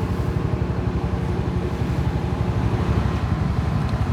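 A small engine running steadily, a low, even putter that does not change.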